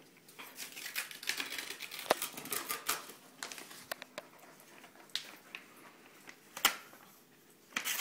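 Paper envelope crackling and rustling as a small child handles it and pulls it open, busiest in the first few seconds, then scattered clicks with one sharp snap late on.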